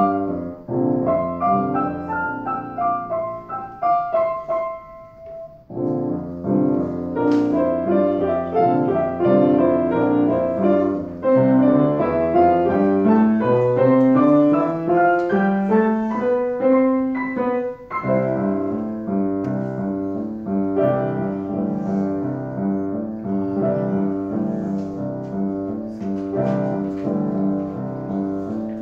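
Piano played by several players side by side at one keyboard, a lively ensemble piece. About five seconds in there is a short drop in the playing. In the middle a long run of notes climbs steadily up the keyboard, and then steady repeated chords carry on.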